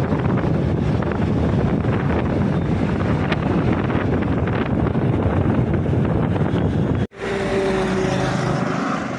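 Wind buffeting the microphone over motorcycle and road noise while riding along a highway. About seven seconds in the sound cuts off briefly, then quieter traffic noise follows with a steady hum from a passing vehicle.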